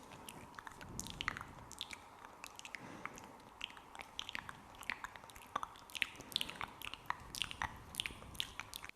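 Close-miked ASMR mouth sounds: rapid sticky, wet clicks and smacks, several a second, with no pause between them.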